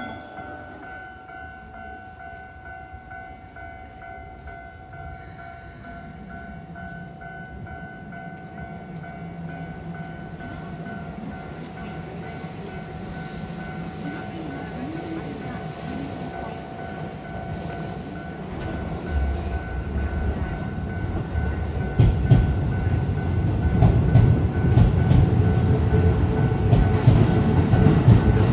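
Level-crossing warning signal ringing steadily while a Keikyu New 1000 series electric train approaches. The train's rumble grows louder over the last third, becoming loud about 22 seconds in, with the clack of wheels over rail joints as it reaches the crossing.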